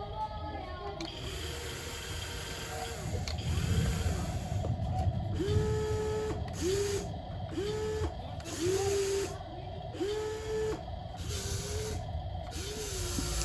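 Electric motors of a toy remote-control excavator whirring in short start-stop bursts, about one a second, each rising quickly to a steady whine as the arm and scoop move.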